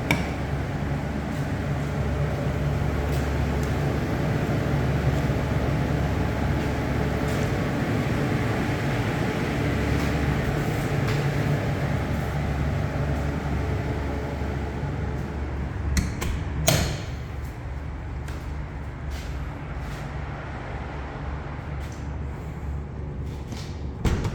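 Steady low machine hum with a broad rushing noise, easing slightly after about two-thirds of the way in. A couple of sharp knocks come around two-thirds of the way in, and another just before the end.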